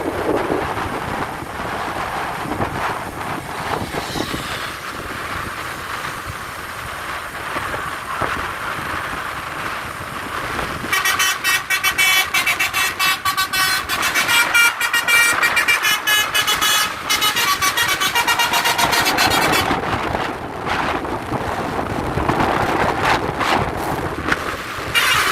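A bus's 'telolet basuri' multi-tone musical horn playing a tune of rapid toots that jump between pitches, for about nine seconds starting about eleven seconds in and again briefly near the end. Steady road and engine noise runs underneath.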